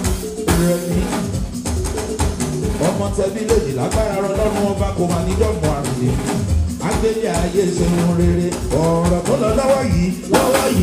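Live band playing: drum kit and percussion keeping a steady beat under bass and keyboard. A male lead singer sings over it from about three seconds in.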